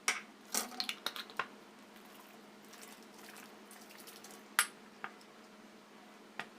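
Kitchen utensils and dishes clinking and knocking: a quick run of sharp clinks in the first second and a half, then single clinks a few seconds later and a pair near the end.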